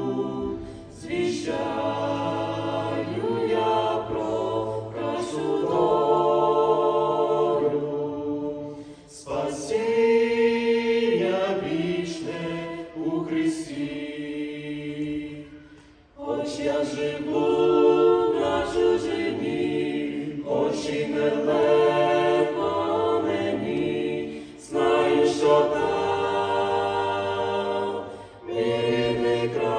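Mixed vocal quartet of two men and two women singing a cappella in close harmony into hand microphones, with sustained chords in long phrases and a brief pause between phrases every several seconds.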